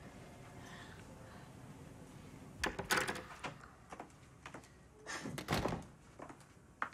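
Quiet room tone, then a hospital-room door being opened about three seconds in, with sharp latch clicks and knocks, followed by more knocks and a rustling stretch as it swings and settles.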